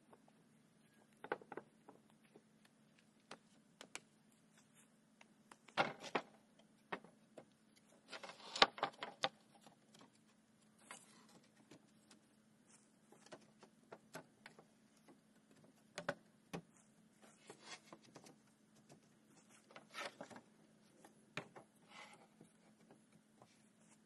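Scattered knocks, clunks and scrapes of concrete blocks and old wooden boards being set in place on a cinder-block pit, with the loudest clatters about six and nine seconds in. A faint steady low hum runs underneath.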